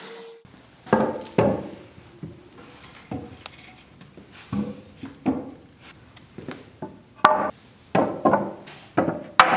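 Wooden 2x4 and 1x4 boards being set and dropped onto a concrete floor: a series of separate knocks and clatters with a short hollow ring, the loudest near the end. An electric leaf blower's steady whine stops abruptly at the very start.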